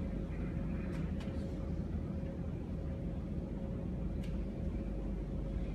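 Steady low rumble of a large hall's room noise, with a faint constant hum and a few soft clicks.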